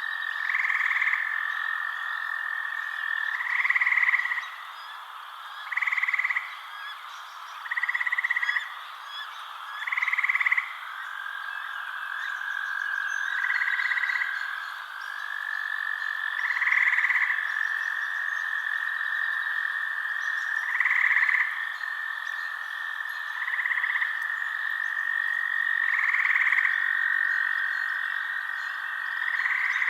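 Frogs calling at night: a steady high trill with a louder call about a second long repeating every two to four seconds, around eleven times.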